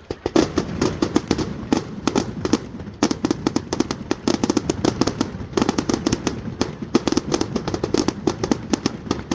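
Fireworks going off in a rapid, unbroken string of sharp bangs and crackles, many each second, easing briefly about three seconds in.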